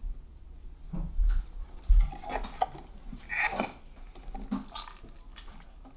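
Hands kneading bead-filled slime in a glass bowl: irregular wet squelches with clicks and knocks against the glass, and a dull thump about two seconds in.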